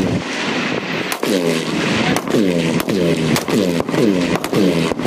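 Rifle fired in a steady series of shots, about two a second, each shot followed by a short tone falling in pitch.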